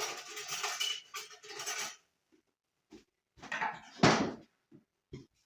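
A metal fork clinking and scraping against a plate of food, a dense clatter for about two seconds, then another short burst and a few scattered clinks.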